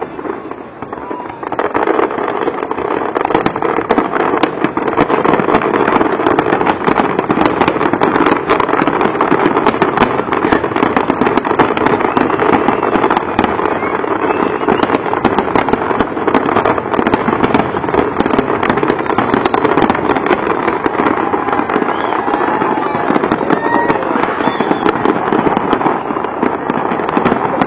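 Fireworks display going off in a dense, continuous barrage of bangs and crackles, building up after a brief lull about two seconds in.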